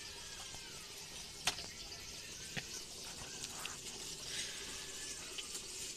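Faint steady hiss of a pot of chicken simmering and steaming over a fire, with a few sharp clicks, the clearest about a second and a half in and again near the middle.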